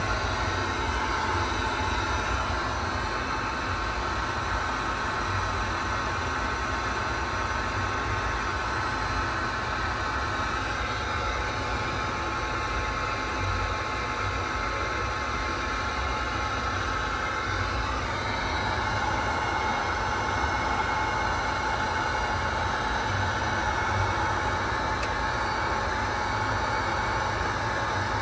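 Steady whir of a small electric motor with a fan, a whine over a low rumble; the pitch of the whine shifts slightly about two-thirds of the way through.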